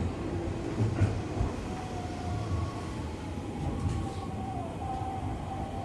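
Odakyu 2000 series commuter train running, heard from inside the front car: a steady low rumble with a thin, steady motor whine joining it about two seconds in.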